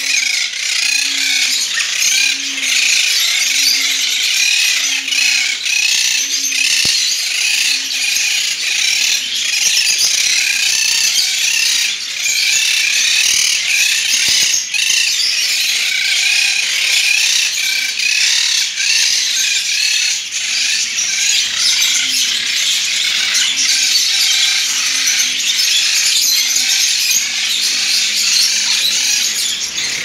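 A flock of caged lovebirds chattering without a break: a loud, high-pitched mass of many overlapping shrill calls.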